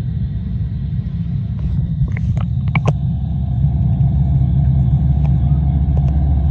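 Loud steady low underwater rumble picked up by a camera submerged in the tank, growing a little louder about four and a half seconds in, with a few short sharp clicks about two to three seconds in.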